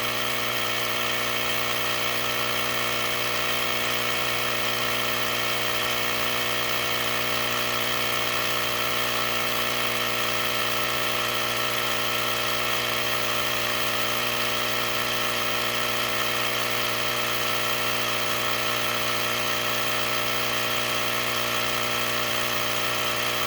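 Small portable electric air compressor running steadily with an even, unchanging hum while it inflates a very flat four-wheeler tire.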